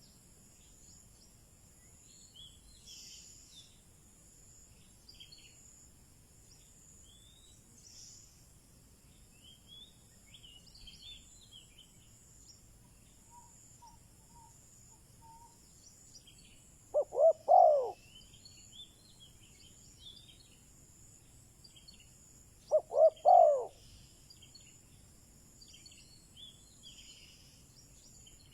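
Spotted dove cooing twice, about six seconds apart, each phrase a few quick notes running into a longer coo. This is the decoy call used to provoke wild male doves. Faint chirps of small birds and a steady high hiss sit underneath.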